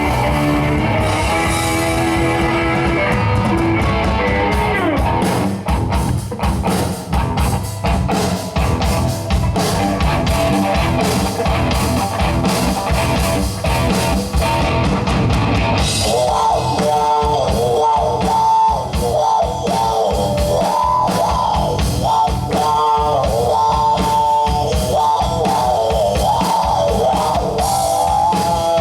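Rock band playing an instrumental passage on electric guitar and drum kit. About sixteen seconds in, a busy lead guitar line comes in over the drums, its notes sliding up and down in pitch.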